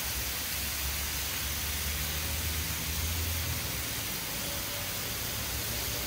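Calf liver and sliced onions sizzling on a hot Blackstone flat-top griddle: a steady, even hiss with a low rumble underneath.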